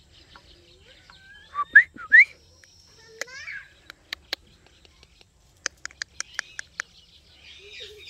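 Indian ringneck parakeet calling: two sharp rising whistles, then a chirp, followed by a fast run of about eight clicks and some soft chatter near the end.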